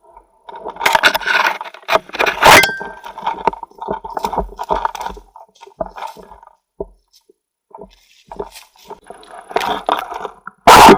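Irregular scraping and rattling in uneven bursts, with a short lull a little past the middle.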